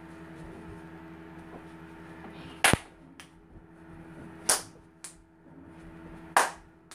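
Three sharp, loud bangs about two seconds apart, each followed by a lighter knock, made by a child dancing, over a steady low hum.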